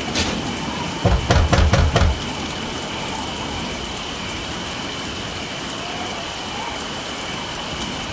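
Steady rain-like hiss with a faint high tone running through it, and a burst of rapid heavy thuds about a second in.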